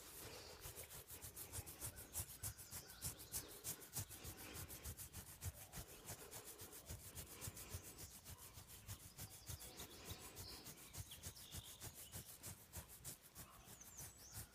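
Faint, quick scratching and rubbing of a hand in a wolfdog's thick belly fur, several strokes a second.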